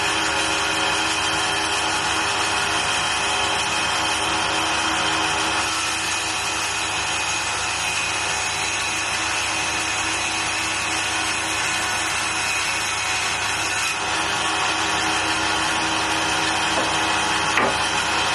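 Record Power Sabre 350 bandsaw running steadily while its blade cuts through CLS softwood timber fed freehand: a continuous sawing sound over the machine's steady hum.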